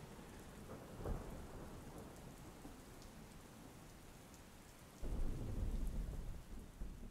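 Steady rain with rolls of thunder: a short rumble about a second in, and a longer, louder rumble from about five seconds in.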